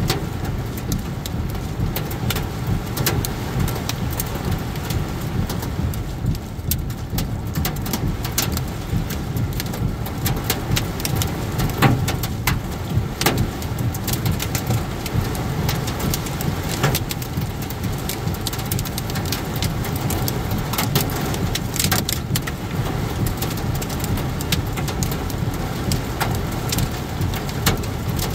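Heavy rain drumming on a car's windshield and roof, heard from inside the moving car, with scattered sharper drop hits over a steady low rumble of road and engine noise.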